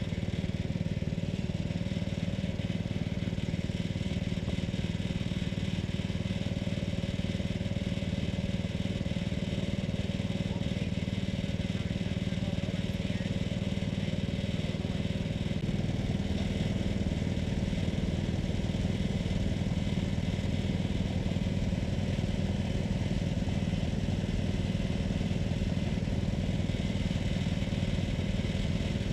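Portable band sawmill's small gasoline engine running steadily, its note shifting slightly about halfway through.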